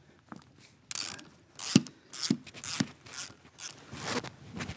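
Socket ratchet wrench clicking in short back-and-forth strokes, about two a second, working on a bolt of the BSA Starfire engine.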